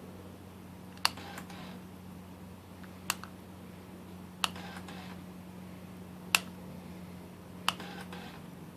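Suzuki SV650 fuel system: five sharp clicks, three of them each followed by a short, faint buzz of about half a second, over a steady low hum. The short buzz, which the owner puts down to the injectors, stands in for the normal 1–2 second priming buzz: the sign of a dead fuel pump.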